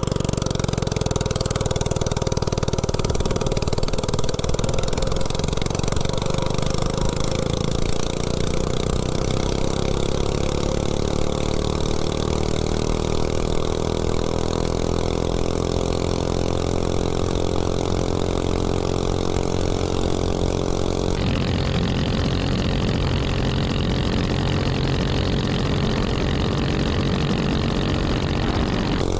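A Coleman CC100X mini bike's 179cc single-cylinder snowblower engine running with no exhaust pipe at full throttle. It revs up as the bike accelerates over the first ten seconds or so, then holds a steady high pitch near top speed.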